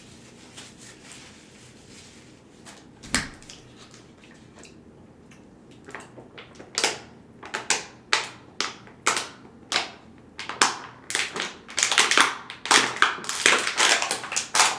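Close-up eating crunches: one sharp crack about three seconds in, then from about six seconds a run of sharp crunches, about one and a half a second at first, crowding together toward the end.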